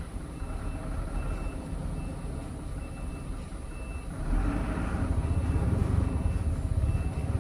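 Heavy truck engine running under load as the excavator-laden tronton is hauled uphill, its low rumble growing louder about four seconds in. A high electronic warning beeper sounds a little more than once a second over it.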